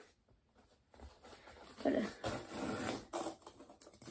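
Cardboard and foam packing being handled and rustled inside a box as it is unpacked by hand, in uneven bursts that start about a second in and get louder about two seconds in.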